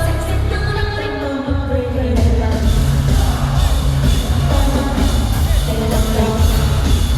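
Live pop music played loud over a stadium sound system, with a heavy bass beat and a singing voice.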